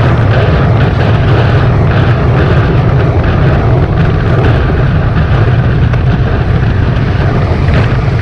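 Heavy wind noise on the microphone of a camera mounted on a road bike riding at about 55 km/h: a steady, loud low rumble with no break.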